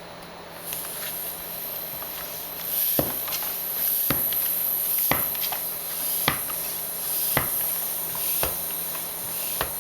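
Bicycle tyre being pumped up with a hand pump: a steady hiss of air, with a clack about once a second from the pump strokes starting about three seconds in.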